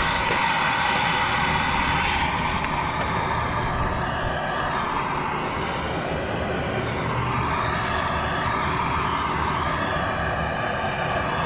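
Handheld gas torch running steadily, its flame directed into a rocket stove's burn tube to preheat the flue and get the air draw going: a steady hissing rush whose tone slowly shifts.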